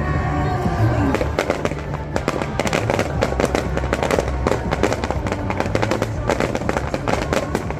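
Fireworks going off in a rapid, dense volley of bangs and crackles, thickening about a second in, with music playing under them.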